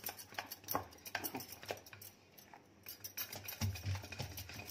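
Silicone-coated whisk stirring thick cooked cream custard in a metal saucepan, with irregular light clicks, two or three a second, as the wires knock against the pan.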